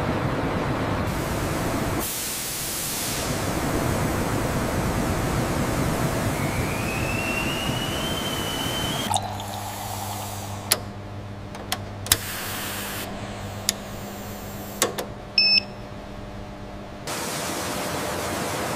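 Oil pouring and rushing into a steel tank over a steady industrial hum, with a slowly rising whine in its last few seconds. About nine seconds in it cuts suddenly to a laboratory analyser's quieter, steady low hum with several sharp clicks and a short electronic beep. The rushing plant noise returns near the end.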